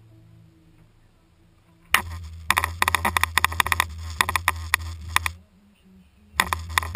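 Wind buffeting the microphone of a camera mounted on the side of an SUV driving over desert sand: a rapid, crackling rush over a low rumble. It starts suddenly about two seconds in, drops out for about a second near the end and then returns. Before it there is only a faint low hum.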